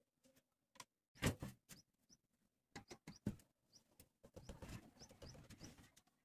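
Felt-tip marker writing on a flattened tinplate sheet: light taps and clicks of the tip and sheet, then a second or two of scratchy strokes with small squeaks as letters are drawn.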